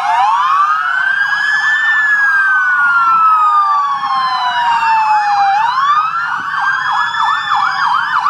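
Several emergency vehicle sirens sounding together, loud. A slow wail rises and falls, overlapping with fast, repeating yelp sweeps that grow stronger near the end.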